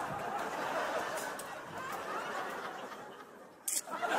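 Studio audience laughing, the laughter fading out over a few seconds, with a sharp knock near the end.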